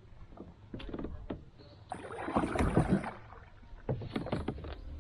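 Water splashing and knocks on a kayak as a freshly caught bass is handled with a landing net, loudest for about a second around two seconds in.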